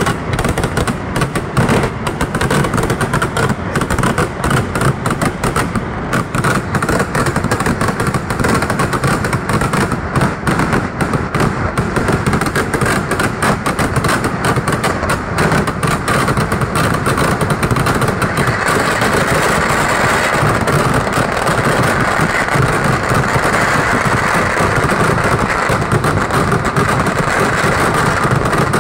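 Kerala vedikettu fireworks going off in a dense, continuous barrage, countless rapid bangs and crackles running together into one loud din. About two-thirds of the way through it grows thicker and more even, the bangs merging almost completely.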